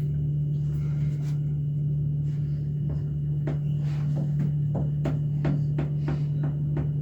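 Passenger lift car running between floors: a steady low hum with a faint high whine, and scattered light clicks and ticks from about three seconds in.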